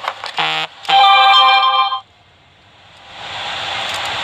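Electronic beeps from a soldering rework station being switched on: a short beep, then a louder, longer tone lasting about a second that cuts off sharply. A steady hiss comes back about three seconds in.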